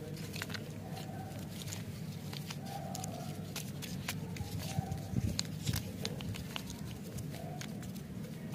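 Wrapped lollipops handled together in the hands: many short crinkles and clicks of the candy wrappers rubbing and knocking against each other.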